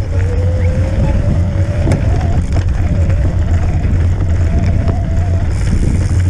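Fat-tyre electric bike riding over snow: a steady low rumble from the knobby tyre and wind on the microphone, with the electric motor's thin whine wavering and drifting slowly up in pitch.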